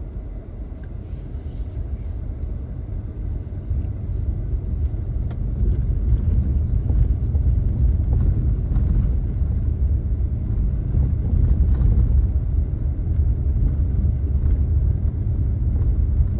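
Car driving on a dirt and gravel road, heard from inside the cabin: a steady low rumble of tyres and engine that grows louder over the first several seconds and then holds, with occasional light ticks.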